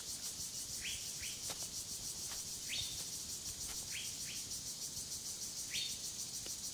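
Tropical forest ambience: a steady, rapidly pulsing high-pitched insect chorus, with about half a dozen short rising bird chirps scattered through it.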